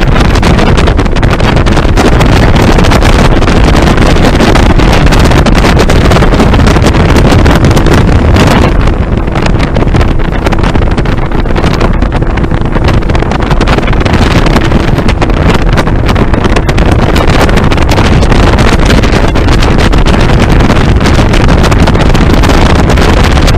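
A motorboat running across the water, heard as a loud, steady rush of wind buffeting the microphone over the motor.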